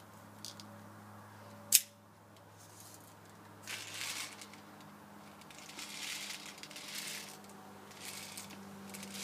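A single sharp plastic click about two seconds in, as the airsoft pistol magazine's follower spring is pulled down and caught, followed by soft rustling and crinkling handling noises while the magazine is readied for loading BBs.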